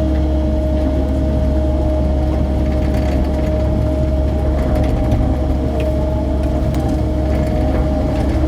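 Mini excavator's diesel engine running steadily under work, a constant low drone with a steady whine over it, and faint clanks from the machine working in mud.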